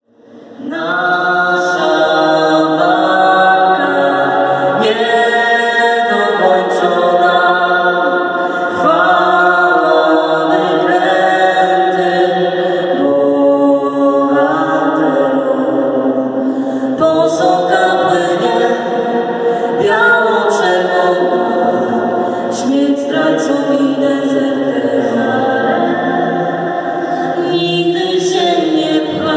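School choir singing a cappella, many voices together on held notes that change slowly.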